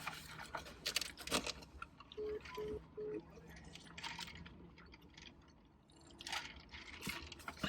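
A phone beeping three times, short even beeps at one pitch, as a call ends, among faint rustling and small clicks.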